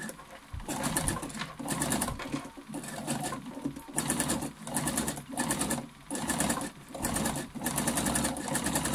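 Computerized sewing machine zigzag-stitching a coiled cotton fabric strip, running in short bursts with brief stops about once a second as the work is turned around the curve, then a longer steady run near the end.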